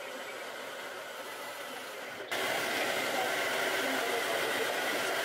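Handheld hair dryer blowing steadily while hair is brushed out with a round brush, jumping suddenly to a louder level about two seconds in.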